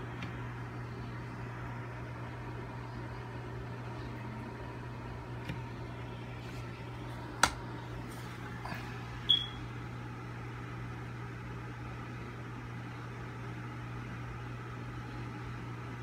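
Steady low mechanical hum, with a sharp click about seven seconds in and a short high squeak about two seconds later.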